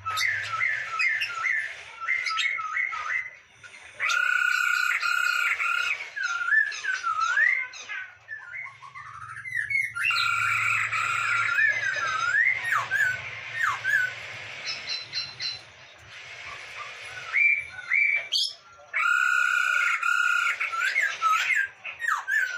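Poksay Hongkong laughingthrush singing vigorously: loud phrases of rapidly repeated notes alternating with rising and falling whistled glides, in bursts separated by short pauses.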